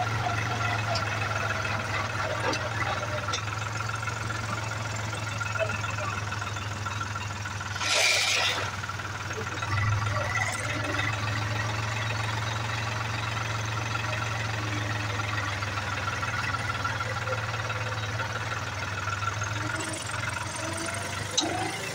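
New Holland tractor's diesel engine running steadily while the tractor is driven, a constant low hum. A brief burst of hissing noise cuts in about eight seconds in.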